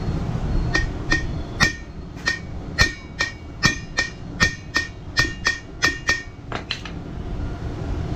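Hammer blows on the bent alloy wheel rim of a TVS NTORQ 125 scooter, about fifteen quick strikes over some six seconds, each with a short metallic ring: the heated bend in the rim is being knocked back level.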